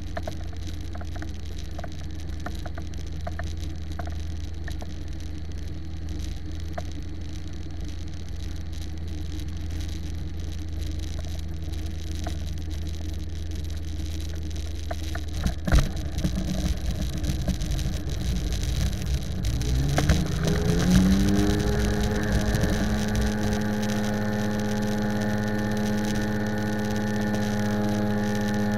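Model airplane doing a touch-and-go. A low steady drone while it glides in, then a sharp knock about halfway through as the wheels touch the runway, followed by rolling rumble. About two-thirds in the motor spools up in a quick rising whine and then holds a steady high pitch for the climb-out.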